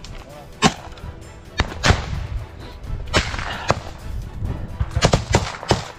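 Small-arms gunfire in a trench firefight: single sharp shots at irregular intervals, coming faster and closer together near the end.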